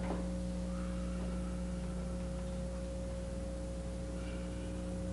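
Steady electrical hum with a faint hiss on an old recording's soundtrack: several unchanging low tones and nothing else of note, while the performer moves silently.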